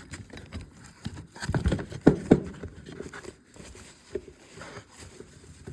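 Metal hand tools and hydraulic pump parts being handled: scattered light knocks and clicks, with two louder knocks a little after two seconds in.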